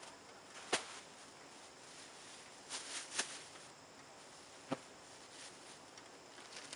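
Handling of a plastic bag and papery pieces of a bald-faced hornet nest: short crinkles and crackles, with two sharp clicks, one just under a second in and one near five seconds in.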